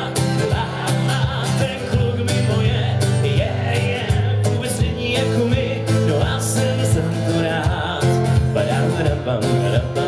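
Acoustic guitar strummed steadily through a PA, with a man singing over it: a live solo acoustic song.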